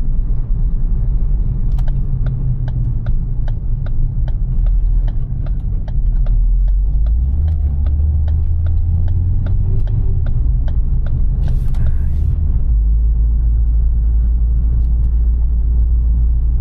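Cabin sound of a 2012 Ford Focus with a DPS6 dual-clutch transmission driving on the road: a steady low engine and road drone that rises in pitch about seven seconds in and drops back near thirteen seconds. A regular ticking at about three a second runs for several seconds, and there is a brief hiss near the twelve-second mark.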